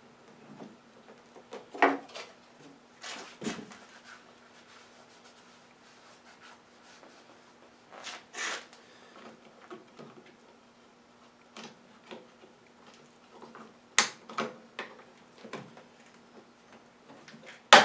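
Plastic air cleaner cover and housing of a Briggs & Stratton 675 EXi lawn mower engine being handled and clipped into place. Scattered clicks, knocks and rubbing, with sharp clicks about 2 s and 14 s in and the loudest click near the end.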